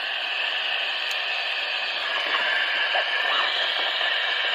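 Steady static hiss from the speaker of a Sommerkamp TS 790 DX CB transceiver, receiving on the 11-metre band around 27.53 MHz between overs with no station clearly coming through.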